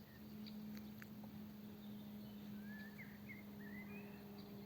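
Faint songbird chirping: a few short, quick up-and-down notes, mostly in the second half, over quiet woodland background with a steady low hum.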